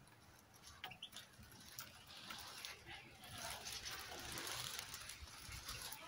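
European goldfinches feeding on scattered seed: faint pecking and rustling, with a few brief high chirps about a second in and a soft rustle that swells in the second half.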